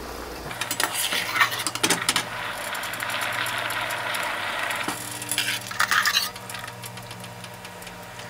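Boiled sweet corn kernels tipped from a strainer into a bowl: irregular clatter and clinks of kernels and strainer against the bowl, with a denser pouring patter in the middle. A steady low hum runs underneath from about half a second in.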